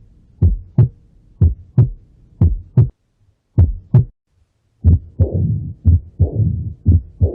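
Human heartbeat heard through a stethoscope: paired lub-dub thumps about once a second, with two brief pauses. From about five seconds in, a whooshing sound follows each beat.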